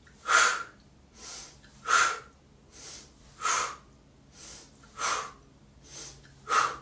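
A woman's forceful kriya breathing: five sharp exhales through the mouth about every second and a half, with a quieter inhale through the nose between each.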